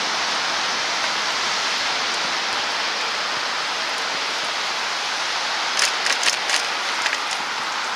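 Steady hiss of wet snow and sleet falling during a snowstorm, with a quick run of sharp ticks about six to seven seconds in.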